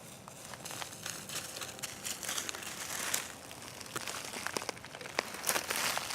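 Footsteps crunching and crackling through dry leaf litter and twigs, an uneven run of sharp snaps and rustles.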